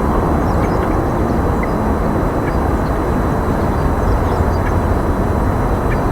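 Loud, steady low rumbling outdoor noise, with a few faint, short, high chirps scattered through it.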